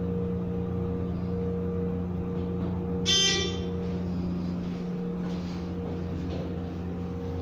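Steady hum of a ThyssenKrupp hydraulic elevator in motion, with a short electronic ding about three seconds in.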